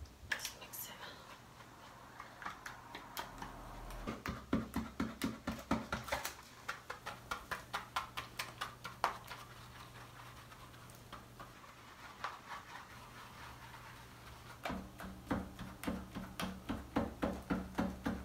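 Tint brush clicking and scraping against a plastic hair-dye bowl while hair dye and developer are stirred together, in quick rhythmic taps that come thickest about four seconds in and again from about fifteen seconds in.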